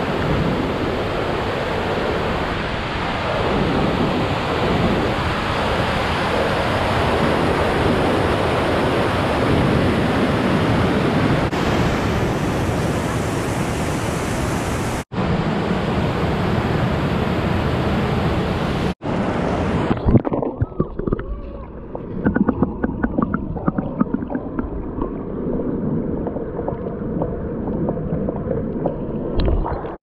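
Waterfall water rushing steadily. About two-thirds of the way through, after two brief dropouts, the sound turns duller and irregular knocks or bumps come through over it.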